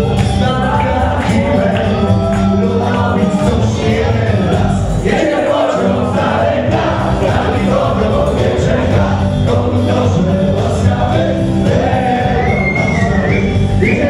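Wedding band dance music with singing, loud and steady.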